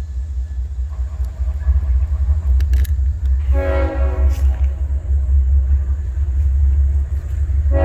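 Train horn blowing: one blast of about a second and a half a few seconds in, and a second blast starting near the end, over a steady low rumble.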